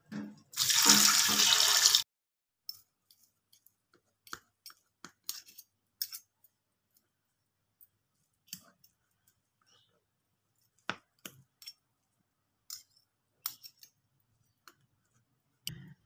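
A loud rush of running water for about a second and a half near the start, cutting off sharply. Then scattered clicks and scrapes of a metal spoon and fork on a cutting board as boiled chicken breast is pulled apart.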